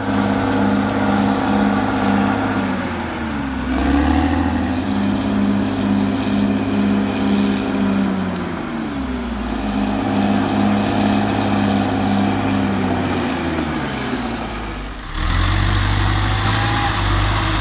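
Heavy diesel machine engine running under load with a steady pulsing beat, its pitch sagging and recovering three times. The sound changes abruptly about 15 seconds in.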